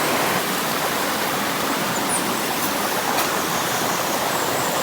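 River water rushing steadily, with a couple of faint clicks.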